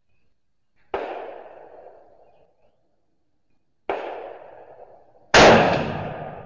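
Gunshots at a rifle range: two quieter shots about three seconds apart, then, about five and a half seconds in, a much louder 6.5 Creedmoor rifle shot whose report rings out and fades over about a second and a half.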